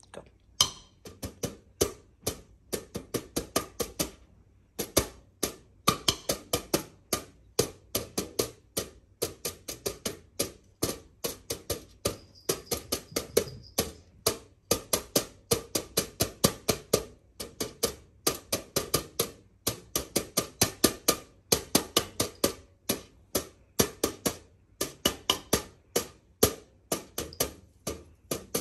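A homemade drum, aluminum foil stretched over a bowl, beaten with a wooden spoon in a steady run of sharp strikes, several a second, with a short pause about four seconds in.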